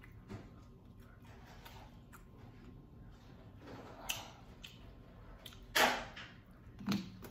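Eating sounds: quiet chewing and handling of fast food, with a sharp crunchy bite into a fried chicken nugget about six seconds in.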